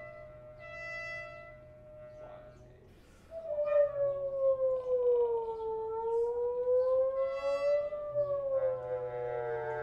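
Brass, wind and voice quartet of trumpet, trombone, bass clarinet and baritone holding soft sustained tones. About three seconds in, a louder tone enters and slides slowly down, back up and down again, like a siren, over the held notes.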